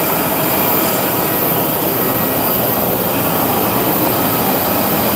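Steady, loud rushing hum with a faint whine from a parked Airbus A320 airliner, typical of its auxiliary power unit running in the tail cone during a turnaround.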